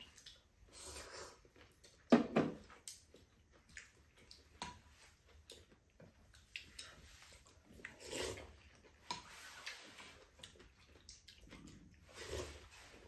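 Two people eating glass-noodle japchae: noodles slurped and chewed, with chopsticks and spoons clicking against ceramic bowls. The loudest slurp comes about two seconds in, with others near eight and twelve seconds.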